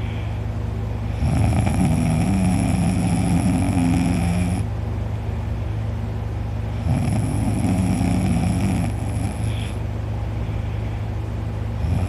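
A man snoring loudly in deep sleep: two long, deep snores of about three seconds each, one starting about a second in and one just past halfway, with quieter breathing between.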